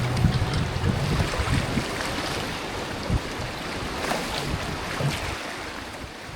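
River water rushing, with wind buffeting the microphone and a few light knocks, gradually fading down.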